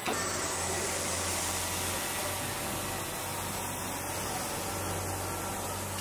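Steady factory noise of a car body-shop production line with KUKA industrial robots at work: an even hiss over a low hum.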